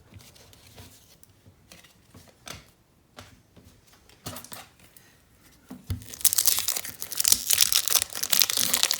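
A few light clicks of trading cards being handled. Then, about six seconds in, a loud crinkling and tearing as a trading-card pack's wrapper is ripped open.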